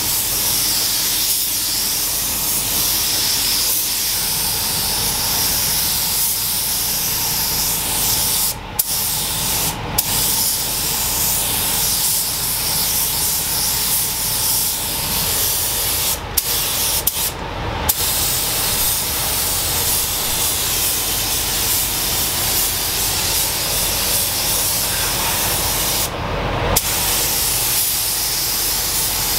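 Paint spray gun hissing steadily as base coat is sprayed onto a car body. The hiss breaks off briefly about five times, as the trigger is let go between passes.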